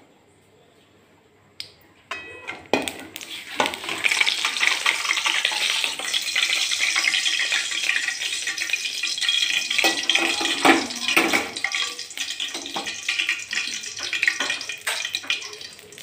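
Ghee sizzling and crackling in a hot pan as cardamom pods fry in it. It starts suddenly about two seconds in and keeps up a dense hiss with scattered pops.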